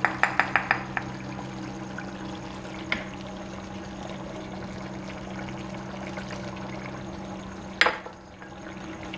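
A run of quick light taps as ground spices are knocked out of a small glass bowl over the pan, then mutton karahi simmering in its tomato-and-water gravy over a steady low hum, with one sharp knock near the end.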